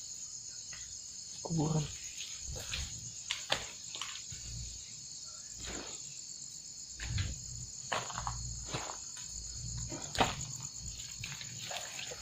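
Crickets chirring steadily in a continuous high-pitched band, with scattered soft footsteps of someone walking.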